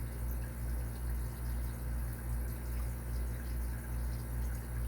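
A steady low machine hum with a slow, even pulsing.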